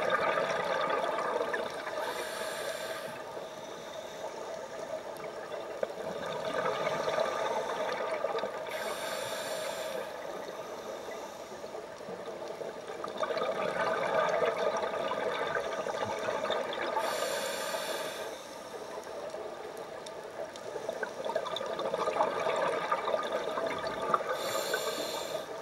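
Scuba diver breathing through a regulator underwater: long bubbling exhalations alternate with short hissing inhalations, about four breaths in all, spaced roughly seven to eight seconds apart.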